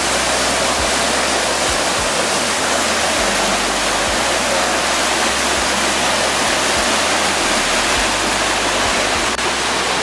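Waterfall rushing steadily: an even wash of falling water with a brief dip about nine seconds in.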